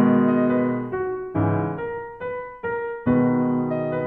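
Piano music: a slow run of single notes and chords, each struck and left to ring and fade, about one every half second.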